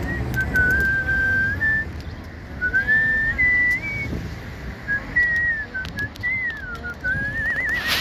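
A person whistling a tune: clear held notes that slide from pitch to pitch, ending in a wavering trill.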